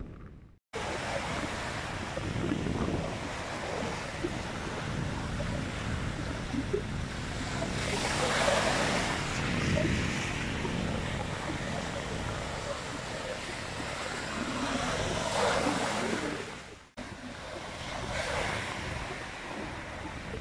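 Sea surf breaking and washing up over a pebble shore, swelling louder with each incoming wave, most strongly about eight seconds in and again about fifteen seconds in. The sound cuts out briefly just after the start and again about seventeen seconds in.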